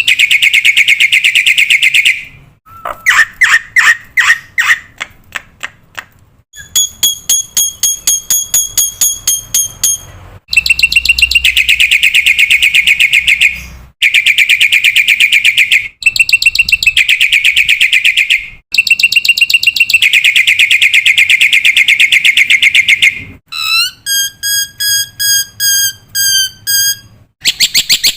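Black-winged myna (jalak putih) song, loud and energetic: long rapid buzzy trills alternate with series of sharp chips, and a run of clear, evenly repeated whistled notes comes near the end.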